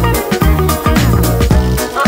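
Upbeat music with a steady beat.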